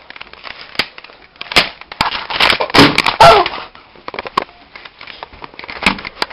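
Handheld camera being jostled and carried: irregular knocks, clatter and rustling, loudest about three seconds in.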